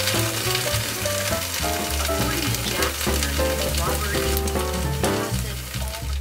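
Fried rice sizzling in a nonstick pot on an electric cooktop, with small crackles as a wooden spatula stirs and lifts it. Background music plays underneath.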